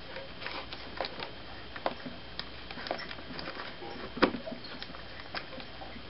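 Irregular small clicks and scrapes of a thin jeweler's screwdriver being worked into the coffee maker heating element's outlet tube, which is clogged with mineral buildup. There is one louder knock a little past four seconds in.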